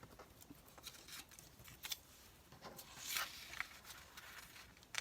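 Paper cut-outs being handled and shifted at a worktable: faint scattered clicks and ticks, with a short soft paper rustle about three seconds in.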